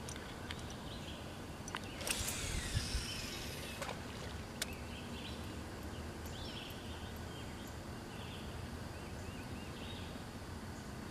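Fishing line whizzing off a reel during a cast about two seconds in, falling in pitch as it slows, followed by a few light clicks. Later a songbird chirps several times over quiet lakeside ambience.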